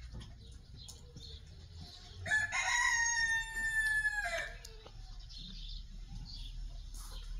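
A rooster crowing once: a single drawn-out call of about two seconds that starts a little over two seconds in and falls slightly in pitch at the end.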